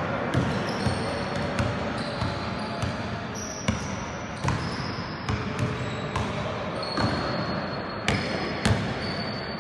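A basketball dribbled on an indoor sports-court floor, bouncing about every three-quarters of a second.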